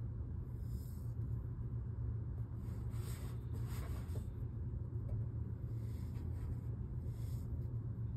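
Purple kinetic sand being pressed and crushed by fingertips, giving a soft, crumbly hiss in three spells, strongest around the middle. A steady low hum runs underneath throughout.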